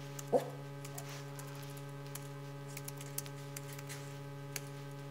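Steady electrical mains hum with a low buzzing tone and its overtones, over a few faint, scattered computer-keyboard keystroke clicks as a password is typed. A brief short sound with a rising pitch comes about a third of a second in.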